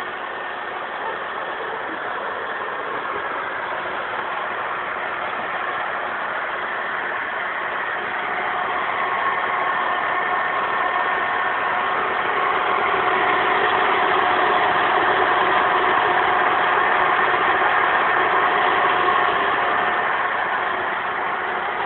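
Small electric motors and gearing of a homemade RC combine harvester running steadily with a whining hum, getting louder about a third of the way in and easing off near the end.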